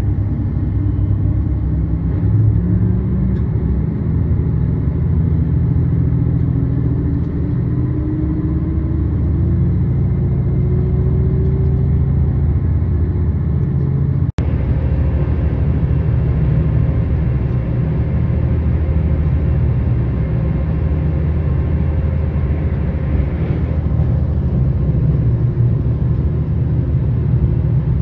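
Diesel limited express railcar, a JR Shikoku 2700 series, running along the line: a steady low engine and running rumble, with one engine tone rising slowly in the first half as it picks up speed. A brief dropout about halfway, where the recording cuts, then the rumble carries on.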